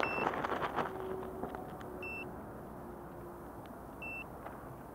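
A drone's piezo beeper giving short high beeps, one every two seconds, three in all, over a faint hiss with scattered faint clicks.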